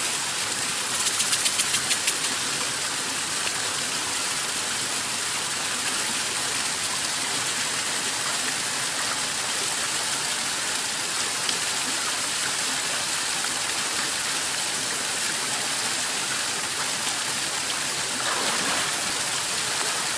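A small mountain stream rushing steadily over rocks and a little waterfall. About a second in comes a brief run of rapid clicks.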